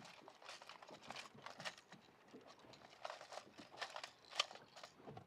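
Hard plastic fishing lures clicking and clattering against each other and the plastic tackle tray as hands sort through them: a run of faint, irregular small clicks.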